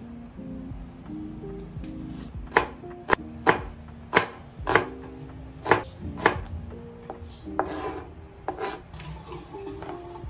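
Chef's knife slicing a small red onion on a plastic cutting board: a dozen or so sharp knocks of the blade striking the board, unhurried and unevenly spaced.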